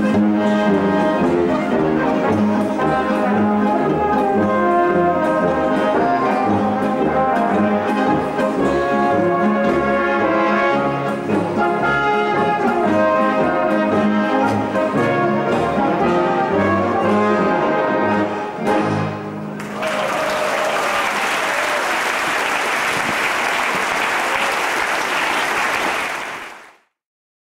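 Bavarian folk-music brass band, trumpets and trombones, playing a lively piece that ends about 19 seconds in. Audience applause follows for about seven seconds, then fades out quickly.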